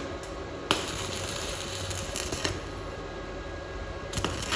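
Stick-welding arc on steel box tube. It strikes with a sharp pop under a second in and crackles and hisses until about two and a half seconds, then strikes again just past four seconds: an unsteady, stop-start arc typical of a beginner welder.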